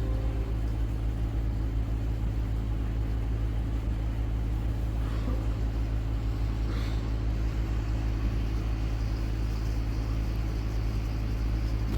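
Steady low rumble of a train, the engine running at a constant level with no change in pitch.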